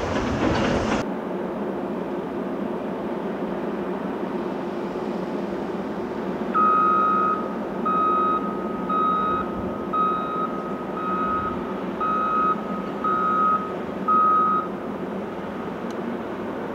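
Crunch and scrape of broken rock in a Caterpillar 374F excavator's bucket, which cuts off about a second in. A Caterpillar 988K XE wheel loader's engine runs steadily after that. From about six and a half seconds in, a reverse alarm beeps eight times, about once a second, then stops.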